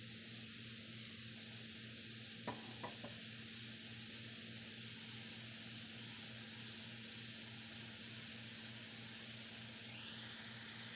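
Steady hiss, like food sizzling in a pan, over a low hum, with a few light clicks about two and a half to three seconds in.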